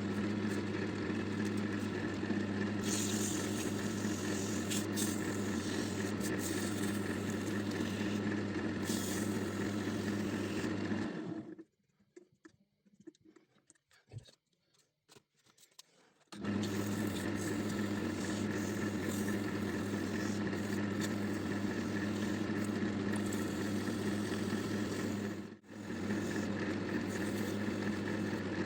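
Wood lathe running steadily, with a turning tool scraping on the spinning epoxy resin blank. The sound cuts out to near silence for about five seconds partway through, then the lathe is heard running again.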